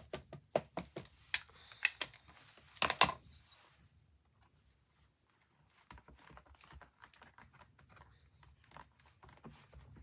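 Ink pad tapped repeatedly onto a clear acrylic mountain stamp, a quick run of light taps, about three a second, that stops about three seconds in. Later come faint soft rustles and clicks as the stamp is laid and pressed into place.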